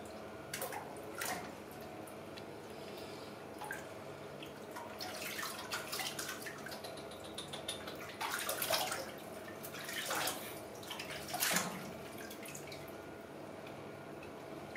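Soapy water in a filled bathroom sink sloshing, splashing and dripping as a baby monkey is washed by hand, in irregular splashes, the loudest about eight and eleven seconds in.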